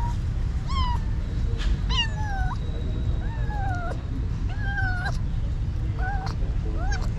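Cat meowing repeatedly, about seven short meows that each fall in pitch, over a steady low rumble.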